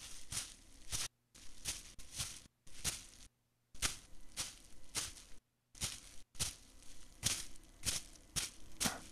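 A digging tool is jabbed and scraped into loose, damp earth, making a crunching stroke about twice a second. The run is broken by a few short drops to silence.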